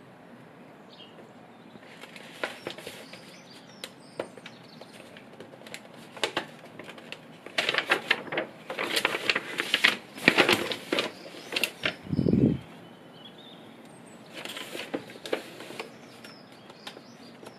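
Large sketchbook pages being turned by hand: paper rustling and flapping in bursts, loudest around the middle, with a short low thump just after.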